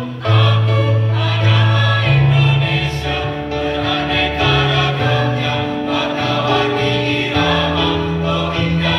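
Mixed choir of men's and women's voices singing in harmony, holding sustained chords that change every second or so over a moving low bass part.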